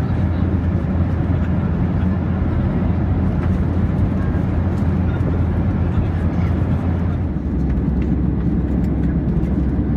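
Steady cabin rumble of a Boeing 737-700 in flight, from its CFM56-7B engines and the airflow, heard from an economy seat. About seven seconds in, the low hum drops slightly.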